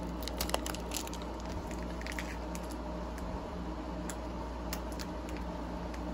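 Foil booster-pack wrapper crinkling and crackling in the hands for the first couple of seconds. After that only a steady low hum remains, with a few faint ticks.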